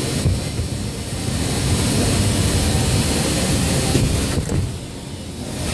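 Automatic tray-filling line machinery running: a steady low mechanical rumble with a noisy hiss over it, quieter for a moment near the end.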